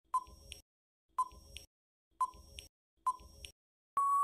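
Countdown timer sound effect: four short ticks, one a second, each a brief beep followed by a fainter click, then a steady beep of about a second near the end as the time runs out.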